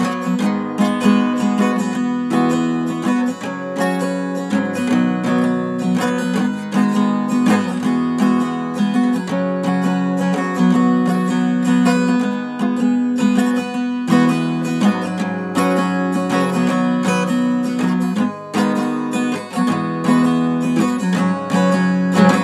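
Background music: an acoustic guitar strumming chords in a steady rhythm.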